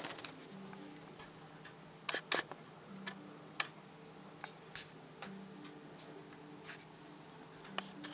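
Scattered light clicks and taps, irregular and a second or so apart, from a small lop-eared pet rabbit being handled and moving about on a cloth-covered table, over faint low background tones.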